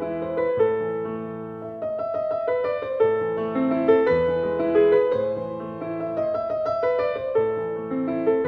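Background music: a gentle piano tune playing a steady succession of notes.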